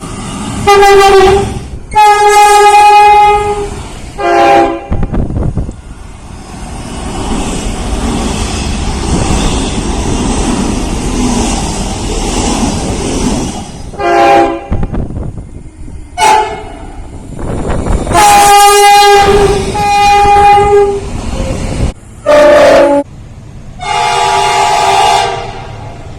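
Locomotive air horns sounding a series of loud blasts, some short and some held for a second or more, each a chord of several tones. About six seconds in the horn stops for roughly eight seconds of a passing train's rumble and wheel noise, and then the blasts resume.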